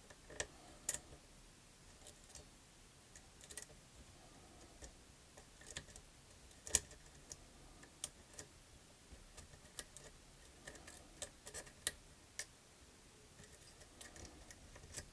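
Faint, irregular clicks and ticks of a lock pick tapping and lifting pins inside a pin-tumbler lock cylinder while feeling for feedback, with a couple of sharper clicks about halfway through and near 12 seconds.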